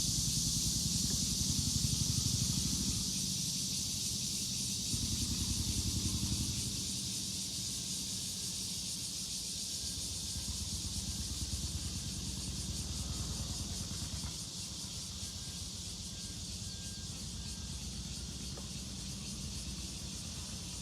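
Low rumble of passing road traffic under a steady high hiss, the rumble loudest in the first six seconds and then easing.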